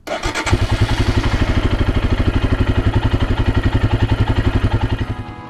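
Royal Enfield Himalayan's single-cylinder engine firing up and settling into an even idle, pulsing at about ten beats a second, fading out near the end.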